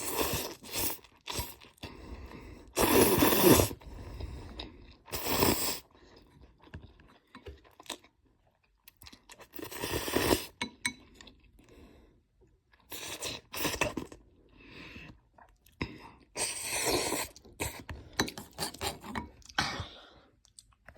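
Close-up eating sounds of a person eating spicy noodles: a string of loud, noisy bursts about a second long every few seconds, with quieter chewing between them.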